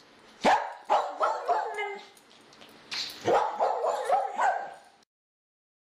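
Barking: two quick runs of several short, sharp barks, the second run starting about three seconds in and cutting off suddenly near the end.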